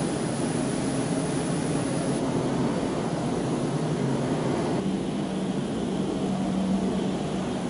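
Steady rushing noise with a low hum: wind and machinery noise on the stern of an aircraft carrier under way.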